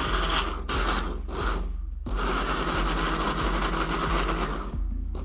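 Countertop blender running at speed, its blades churning milk, yogurt, oats and frozen banana chunks into a thick smoothie. The motor noise breaks off briefly twice and stops near the end.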